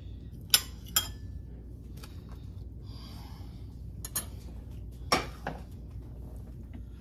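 A table knife clicking against ceramic plates a few times as a slice of cake is lifted onto a small plate, then a louder clack about five seconds in as the knife is laid down on a granite countertop. A steady low hum runs underneath.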